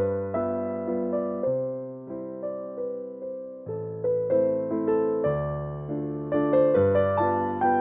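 Background piano music: gentle notes and chords over a bass line, each note struck and fading.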